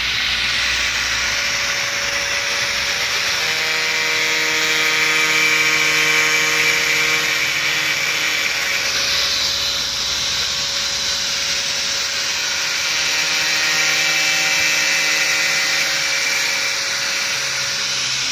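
Handheld electric angle grinder running steadily, its disc cutting grooves into an aluminium composite panel for folding. A constant high grinding hiss, with a steadier pitched whine coming in twice, in the middle and near the end.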